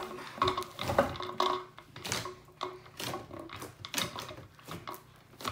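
Hands kneading, pressing and poking large mounds of soft mochi slime made from glue and activator, giving irregular sticky squishes and clicks.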